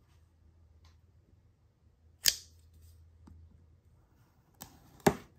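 Three sharp clicks or knocks: a loud one about two seconds in, then a fainter one and another loud one close together near the end, over a faint low hum that stops partway through.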